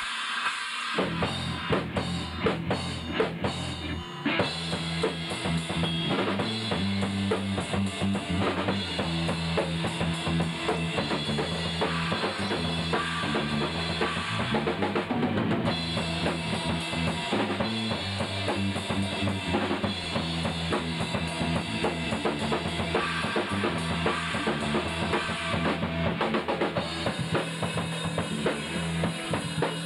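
Rock band playing a song live together: a drum kit with kick and snare driving a steady beat, under bass guitar and guitars. The music cuts in abruptly.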